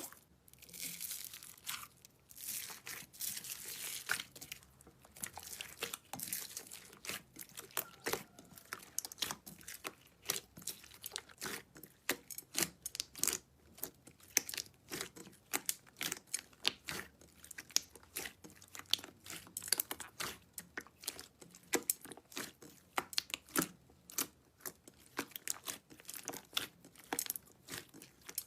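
Slime being squeezed, stretched and pressed by hand, giving a dense, irregular run of crackling clicks and pops.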